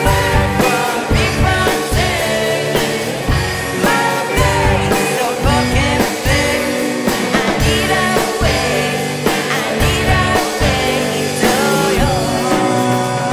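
Electro-pop-rock song with sung vocals over a steady kick-drum beat.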